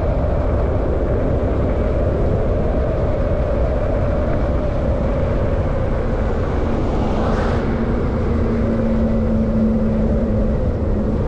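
Honda SH 300 scooter under way: its single-cylinder engine running with a dense, steady rush of riding noise. A little past halfway a steady hum sets in and holds to the end.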